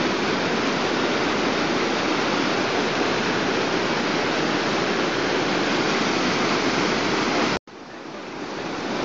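The River Tees in flood, a steady rushing of fast, churning water. About three-quarters of the way through the sound cuts off abruptly, then comes back quieter and swells to full strength, where the water pours over the weir.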